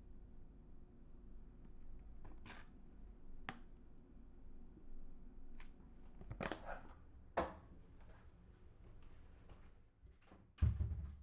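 Light, scattered taps and scrapes of a spoon in a wooden bowl as sugar is weighed out on a kitchen scale. A single low thud comes near the end.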